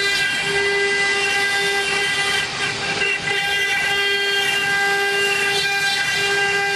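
Stone-carving CNC router's spindle running with a steady whine and its overtones over a gritty noise as the bit cuts stone, dipping briefly about three seconds in.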